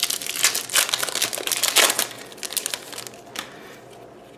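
Foil Yu-Gi-Oh! booster pack wrapper being opened and crinkled by hand: a dense run of crackling that dies down after about two and a half seconds, with one sharp click near the end.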